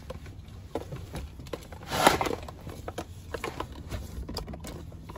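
Plastic clicks, knocks and rustling of a Baby Trend car seat base's LATCH connector and webbing strap being worked onto the car's lower seat anchor, with one louder scraping burst about two seconds in.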